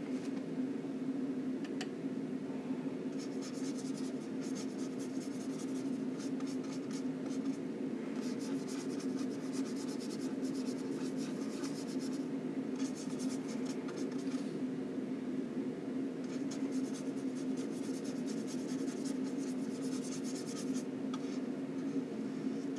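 Flat paintbrush scrubbing oil paint in runs of quick, scratchy strokes with short pauses, over a steady low hum.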